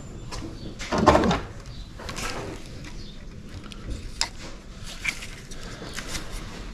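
Scattered clicks and knocks of objects being handled, with one louder sound about a second in, over a steady low rumble of wind on the microphone.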